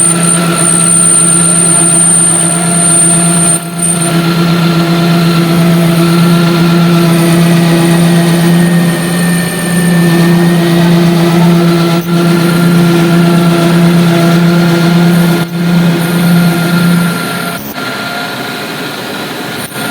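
Lathe running with a steady low hum and a thin high whine; the hum stops near the end.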